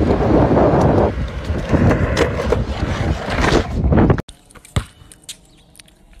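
Skateboard wheels rolling fast over asphalt with wind buffeting the phone's microphone, a loud rough rumble with some sharp scrapes and knocks; it cuts off abruptly about four seconds in, leaving only faint clicks.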